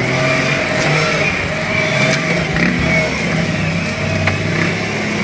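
Jeep engine running under light throttle, heard from inside the cab, as it drives a rough dirt trail, with scattered knocks and rattles from the vehicle over the bumps.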